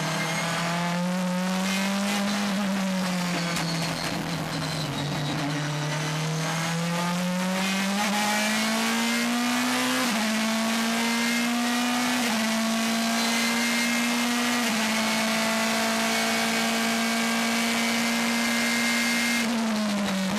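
4.0-litre V8 race car engine running at high revs. Its pitch rises and falls over the first few seconds, then climbs and holds a steady high note, with brief dips about 10, 12 and 15 seconds in, and falls near the end.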